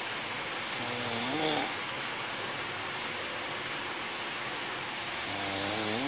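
A sleeping person snoring twice, about four and a half seconds apart, each snore a pitched sound about a second long that rises in pitch at its end, over a steady hiss.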